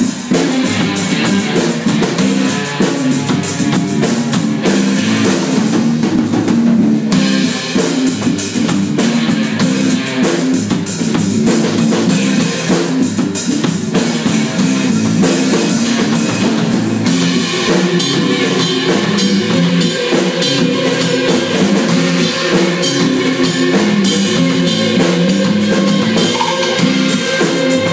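Live rock band playing: electric guitars over a drum kit beat.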